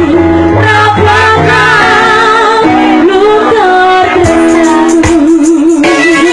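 Live dangdut music: a woman singing into a microphone over the band's bass and keyboard, loud and unbroken, with a long note with vibrato near the end.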